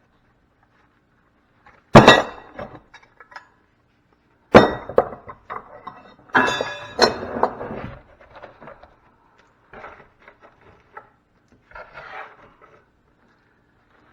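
Metal scrap from a dismantled fuse knocking and clanging: three loud sharp strikes a couple of seconds apart, the one about six to seven seconds in ringing briefly, followed by lighter clinks and clicks.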